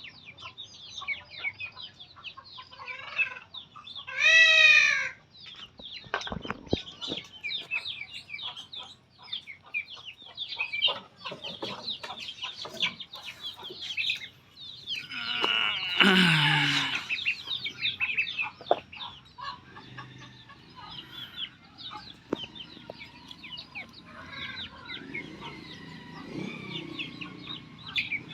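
Animals calling: many short, high-pitched chirps, with a loud squealing call about four seconds in and another, longer one, falling in pitch at its end, past the middle.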